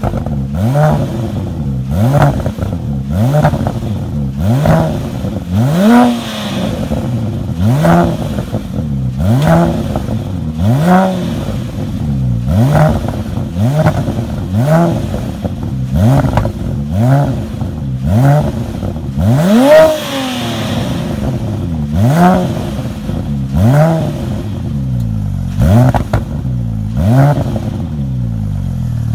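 Porsche 911 Turbo (997) twin-turbo flat-six through an aftermarket MGmotorsport exhaust, blipped repeatedly from idle: about fifteen short revs, one every second and a half or so, each rising and falling back, the highest about two-thirds of the way through.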